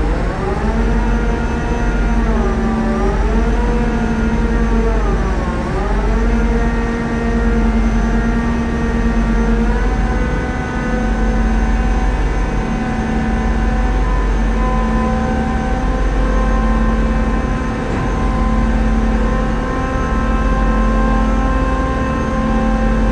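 Tugboat diesel engines running under load, heard from the wheelhouse; the engine pitch dips and recovers twice in the first few seconds, then holds steady over a strong low hum as the Voith Schneider controls are worked.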